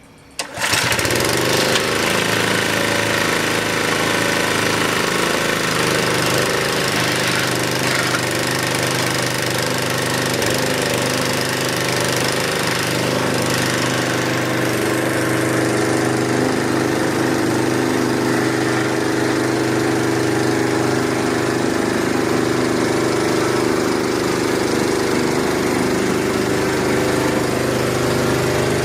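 The small engine of a 2.5-inch Proline gold dredge with hookah attachment starts about half a second in and then runs steadily at speed; its tone shifts a little about fourteen seconds in.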